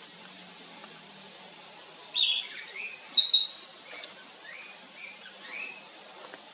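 Narcissus flycatcher singing: one phrase of high whistled notes starting about two seconds in, loudest in its first second or so, then trailing off into softer notes.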